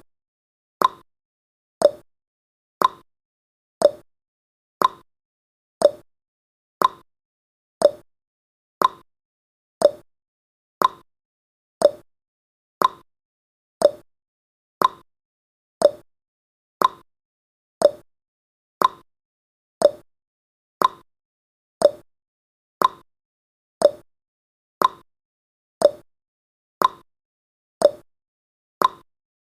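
Clock tick-tock sound effect of a countdown timer: short sharp ticks once a second, alternating between a higher and a lower pitch.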